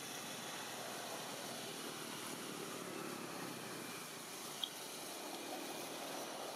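Steady outdoor background hiss with no clear source, with one brief sharp click about four and a half seconds in.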